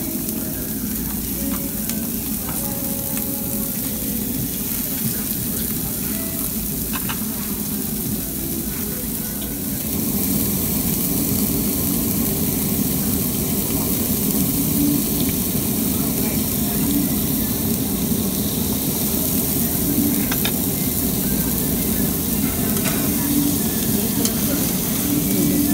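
Slices of raw pork belly sizzling on a tabletop barbecue grill's slotted metal plate. The steady fat-frying hiss grows louder about ten seconds in.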